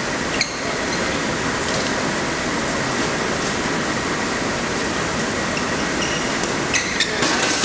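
Steady hall ambience of a badminton match: a constant hiss of crowd and room noise, with a sharp click about half a second in and two more close together near the end, badminton rackets striking the shuttlecock.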